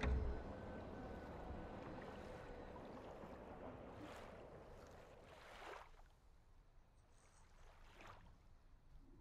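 Gentle water lapping, with soft swishing splashes about four, five and a half, and eight seconds in, over a quiet haze that fades away. A brief low thump sounds right at the start.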